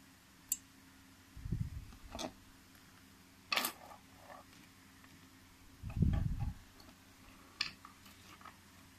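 Small metal hand tools from a vape coil tool kit (tweezers, pliers, screwdrivers) being handled and set down on a wooden table: a few sharp clicks and clinks, with two dull thumps about a second and a half and six seconds in.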